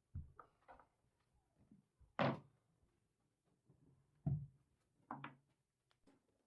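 A few separate dull knocks and thuds of wood and tools being handled on a workbench, the loudest about two seconds in, others near the start and about four and five seconds in.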